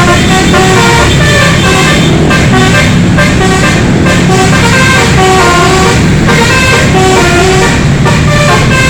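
Indonesian bus 'telolet' multi-tone musical horn playing a loud, continuous tune of stepped notes, each held a fraction of a second, over a steady low rumble.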